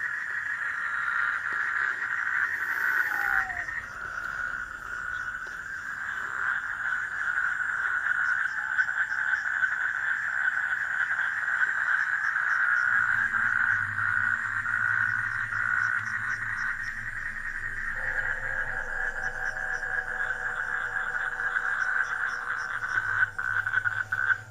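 Chorus of frogs calling around a pond, a dense, rapidly pulsing din that runs on without a break. A short falling note sounds about three seconds in, and a low hum joins about halfway through.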